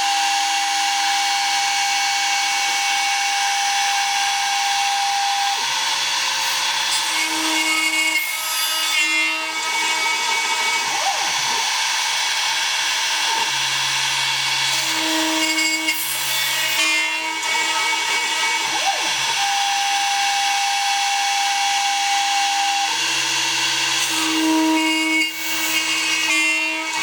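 DIY CNC router milling 2 mm aluminium plate: the spindle runs steadily with a hissing cutting noise. Machine tones over it change pitch as the axes move, and the same sequence of moves repeats about every 14 seconds.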